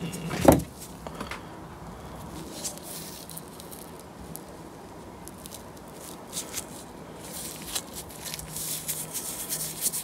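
Quiet background with a faint steady hum. From about seven seconds in come scattered light clicks and rustles as old brake pads are handled in gloved hands.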